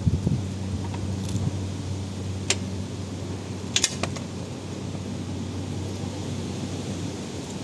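A few light metallic clinks and clicks of brake parts and hand tools being handled, the clearest about two and a half seconds in and a quick pair near four seconds, over a steady low electrical hum.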